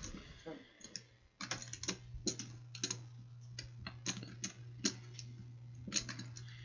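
Irregular light clicks, a few a second and some in quick clusters, over a steady low hum.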